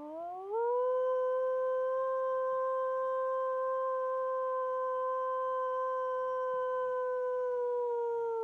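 A woman's imitation wolf howl through cupped hands: one long call that rises in pitch in the first half-second, holds steady, then falls away near the end. It is a howl survey call, given to draw an answer from nearby wolf packs.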